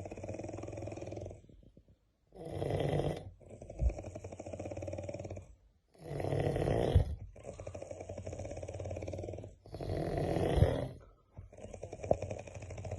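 Snoring of a sleeper, three breaths: each opens with a loud rattling snore, then a quieter, rapidly fluttering stretch, with a short silent pause before the next, about every four seconds. The fast flutter gives it a helicopter-like sound.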